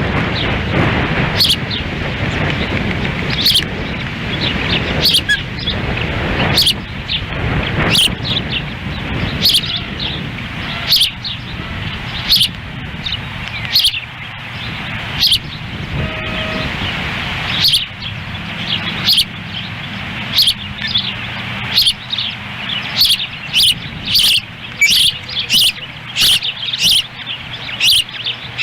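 Ospreys giving repeated short, high chirps that come closer together near the end, over wind rumbling on the microphone.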